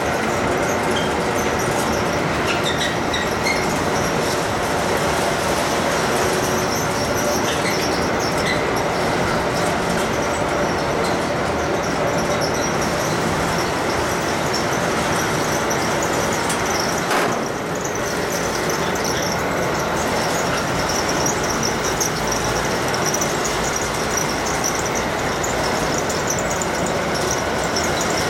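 Steady, loud running noise of a motorboat underway: engine drone mixed with the rush of water and air, with one brief knock about two-thirds of the way through.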